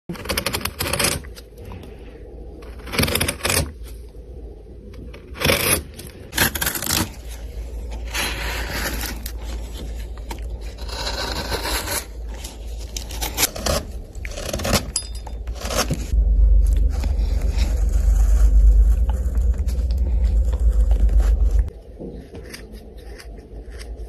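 Steel carving chisel paring a hand-held block of wood, a string of short, uneven scraping cuts as shavings and curls come off. A low rumble runs under the cuts for several seconds in the second half, the loudest part.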